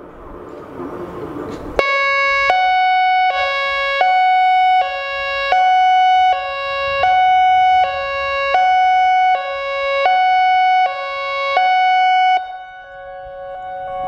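American Signal I-FORCE electronic outdoor warning siren sounding its hi-lo test tone. It comes in loudly about two seconds in, with two pitches alternating about every three-quarters of a second, and cuts off near the end. Other sirens of the same system sound more faintly before it starts and after it stops.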